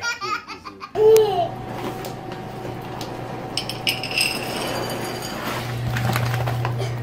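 A baby laughing, then a short falling voice-like call about a second in, followed by dry cat food rattling into a bowl from a bag a few seconds later, over a steady low hum.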